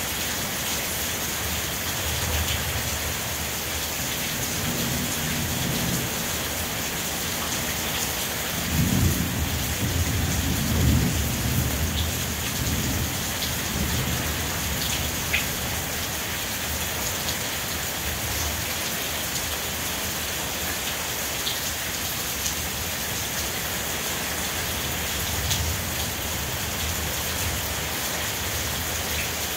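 Steady rain falling, with a low rumble that swells about nine seconds in and dies away a few seconds later.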